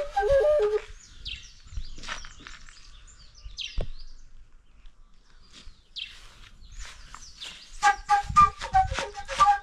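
A transverse wooden flute plays a lively melody that breaks off within the first second, then starts again about eight seconds in with rapid, clipped notes. In the quiet gap between, birds give a few short high chirps.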